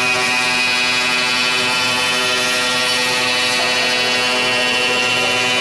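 Biesse Rover 35 CNC machining centre running its router spindle over a wooden door-frame part: a loud, steady whine over the machine's drone, with no breaks.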